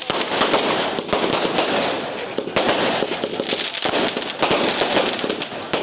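A string of firecrackers going off in a rapid, continuous crackle of small bangs, with a couple of brief lulls.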